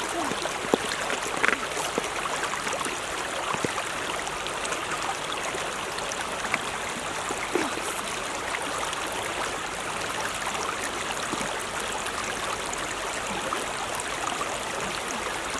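Steady rush of running water, with a few faint clicks scattered through it.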